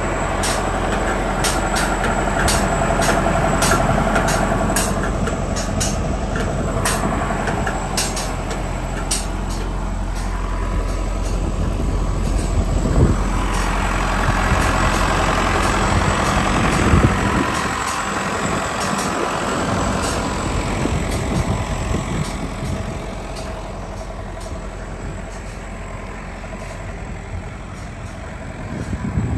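Diesel engine running steadily at idle, a low even hum. A string of short clicks runs over the first ten seconds, with louder knocks about 13 and 17 seconds in, and the engine grows quieter near the end.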